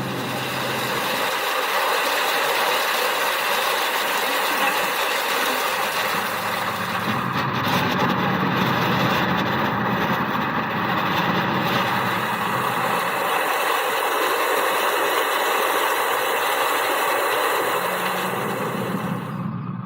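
Heavy machinery engine running steadily, a dense mechanical noise with a few steady tones and a low hum that comes and goes.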